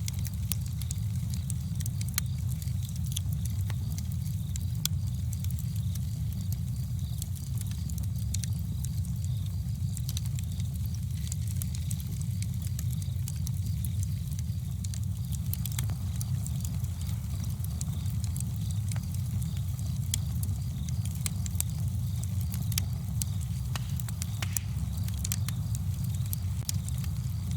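Campfire burning steadily, wood crackling and popping in frequent irregular sharp snaps over a constant low rumble.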